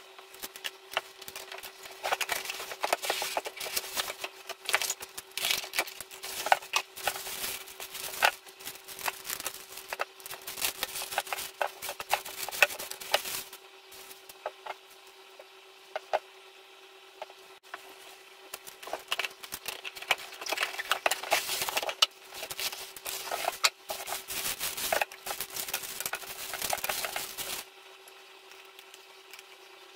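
Cardboard figure box and plastic packaging being handled and unwrapped: two long spells of rustling and crinkling with small clicks, with a lull between them, over a steady faint hum.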